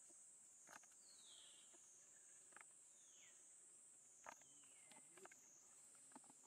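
Faint steady high-pitched insect drone that slowly wavers up and down. Three short descending squeak-like calls sound about a second, three seconds and nearly five seconds in, with a few light rustles and ticks in dry leaves.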